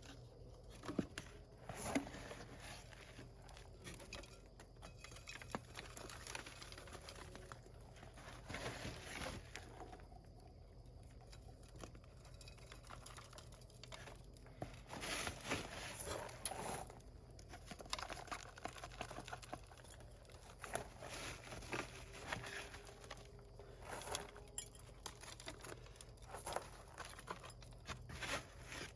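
Potting soil with perlite rustling and pattering as it is handled and scattered into a pot around a cactus's roots, with small scattered clicks and scrapes.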